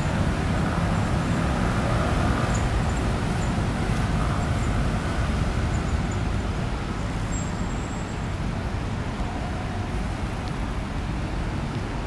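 Steady city road traffic: scooters and cars moving through a busy intersection, a dense even rumble that eases slightly in the second half.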